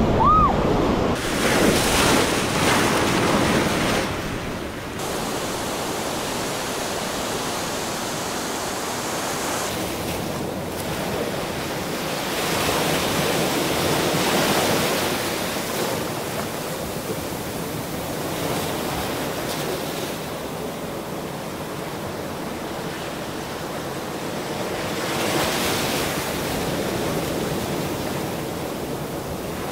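River water rushing and splashing around a raft, with wind buffeting the action-camera microphone; louder for the first few seconds, then steadier.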